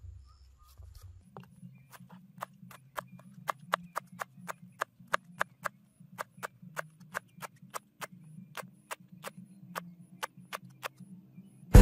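Long single-edged kitchen knife chopping herbs on a plastic cutting board: a quick, even run of crisp chops, about four a second, starting a second or so in.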